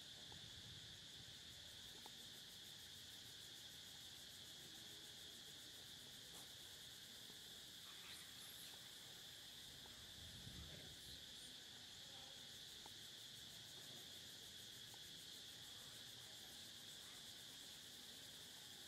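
Faint, steady high-pitched insect chorus, a continuous even drone, with a soft brief rustle in dry leaves about ten seconds in.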